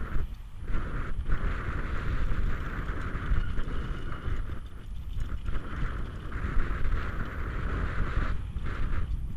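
Mountain bike riding fast down a dirt singletrack: wind rushing over the camera microphone with tyre rumble on dirt and loose rock. A steady buzz, typical of the rear hub's freewheel while coasting, cuts out briefly several times.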